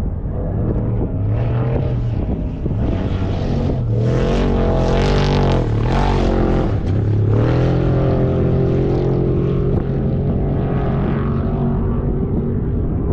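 Off-road race vehicle engine running hard, its pitch dipping and climbing again a few times around the middle, where it is loudest.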